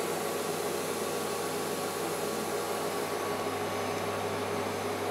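MPP Solar MPI 10K hybrid inverter running under heavy load: a steady low hum beneath an even, fan-like whir.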